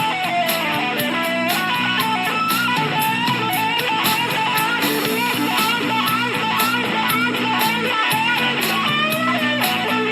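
Blues-rock recording: an electric guitar plays a lead line of wavering, bent notes over bass and a steady drum beat.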